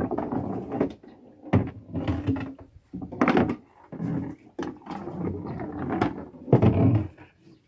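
Irregular knocking, thumping and rattling from a man handling gear and catch at a plastic crate in a small fiberglass boat: a string of separate knocks and scrapes, several louder ones about a second and a half in, a little past three seconds and near the end.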